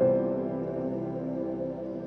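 Calm ambient background music: soft sustained keyboard chords, a new chord coming in at the start and slowly fading.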